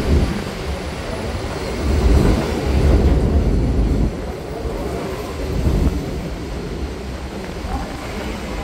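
New York City subway train arriving on an elevated track, its cars passing close by with a steady low rumble that swells loudest about two to four seconds in.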